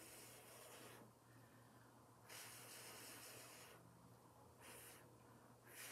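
Faint, repeated long blows of breath through pursed lips onto wet acrylic pouring paint, pushing it across the panel in a Dutch pour. Each blow is a breathy hiss of a second or so, with short gaps between, and a shorter one just before the end.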